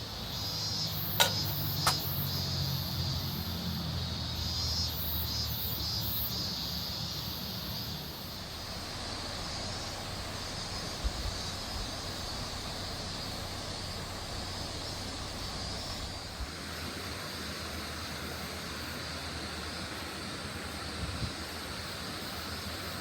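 Outdoor ambience with a vehicle engine droning low, fading out after about eight seconds, over a steady high buzzing; two sharp clicks about a second and two seconds in.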